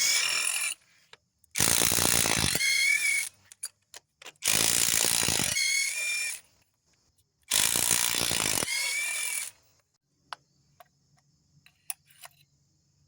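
Ratchet wrench run in four short bursts of about one to two seconds each, with a whine, loosening the old spark plugs for a misfire repair. Faint ticks and clicks come between the bursts and near the end.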